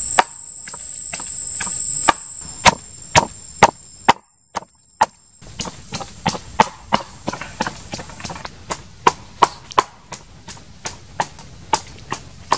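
Wooden pestle pounding chilies and garlic in a wooden mortar: a steady run of thuds, about two to three a second, with a short break about four seconds in. A high steady whine sounds behind the first two seconds.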